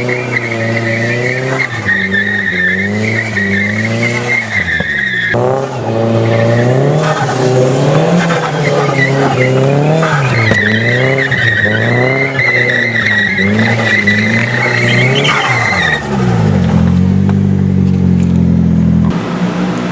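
Nissan S14 drifting: its engine revs rise and fall constantly as the throttle is worked, with tyre squeal early on and again for several seconds in the second half. Near the end the engine holds a steadier note before the sound drops away.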